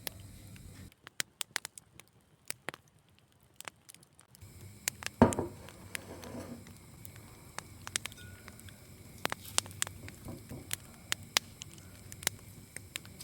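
Food crackling in a frying pan: scattered sharp pops, with one louder knock about five seconds in.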